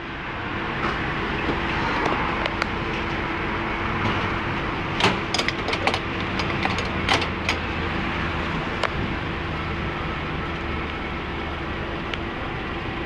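City street traffic with a car engine running steadily, with a string of sharp clicks about five to seven and a half seconds in.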